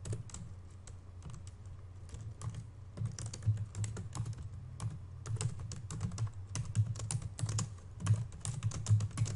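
Typing on a computer keyboard: a quick, uneven run of key clicks, sparser in the first few seconds and denser after that.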